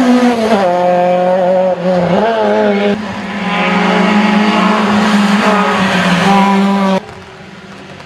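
Small rally cars at high revs driving hard through a bend, the engine note rising and falling with throttle and gear changes, with some tyre squeal. The sound cuts abruptly and drops much quieter about a second before the end.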